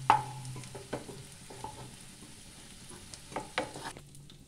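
Wooden spatula scraping and knocking against a kadai as fried potato pieces are lifted out of hot oil, with the oil sizzling underneath. A sharp, ringing knock comes right at the start, with more knocks about a second in and around three and a half seconds in.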